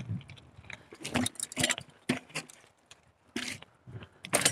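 Carrera Hellcat mountain bike rattling over rough trail, with irregular knocks and clatter from the bike as it is ridden.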